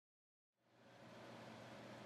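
Near silence: the first half second is digitally silent, then faint room tone.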